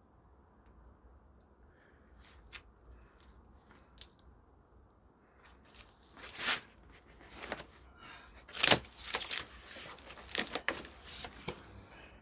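Packing material being handled and torn open: crackly rustling and tearing in a run of short bursts from about six seconds in, loudest near nine seconds.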